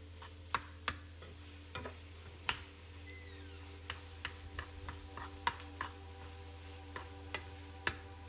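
Metal spoon stirring and breaking up raw ground beef and onions in a non-stick frying pan, knocking and scraping against the pan in irregular sharp clicks, over a faint steady hum.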